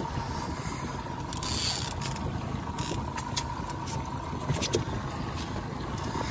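Outboard motor running steadily at trolling speed with a constant whine, water splashing beside the boat in a few short hissing bursts as a hooked king salmon thrashes at the surface, and scattered light clicks.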